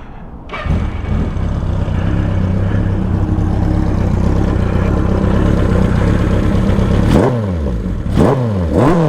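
1983 Suzuki GS1100E's air-cooled inline-four engine starting, catching about half a second in and idling steadily, then blipped a few times near the end, the revs rising and falling each time.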